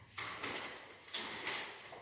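Repeated rubbing swishes, about one a second, each lasting just under a second.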